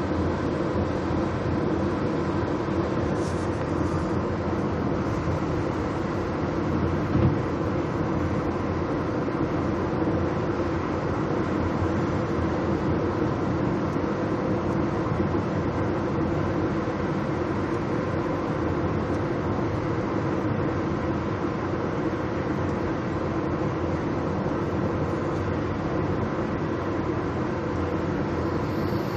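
Steady road and engine noise inside a moving car's cabin, with one brief bump about seven seconds in.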